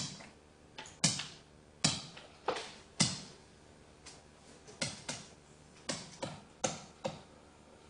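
A pen stylus tapping and clicking on a digital writing surface while words are handwritten: about a dozen sharp, irregular taps.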